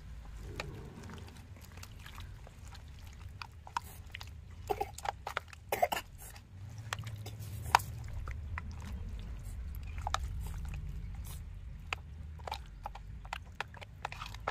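A bare hand squelching and kneading chicken pieces in a thick masala marinade in a stainless steel bowl, making irregular wet squishes and splats over a low steady background rumble.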